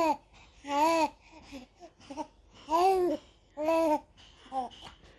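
A young baby cooing: about five short vowel-like coos with pauses between, each rising then falling in pitch.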